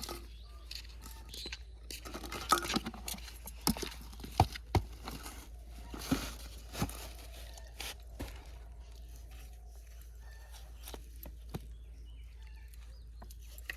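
Rustling and crinkling with sharp clicks and knocks, thickest in the middle few seconds, over a steady low hum.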